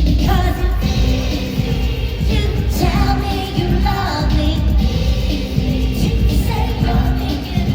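Pop dance music with a steady heavy bass beat and a singing voice.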